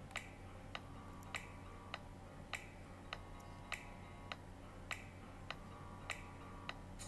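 Quiet background music made of soft, even ticks, a little under two a second, over a low steady hum.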